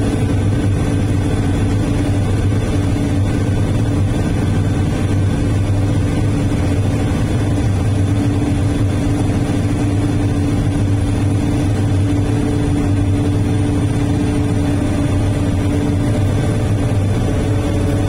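Komatsu HD465-7R rigid dump truck's diesel engine running steadily as the truck drives, heard from inside the cab: a constant low drone with a steady hum, its pitch rising slightly near the end.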